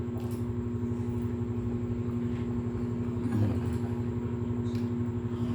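Steady mechanical hum of a running motor, with a fast, even low pulsing and a few faint clicks.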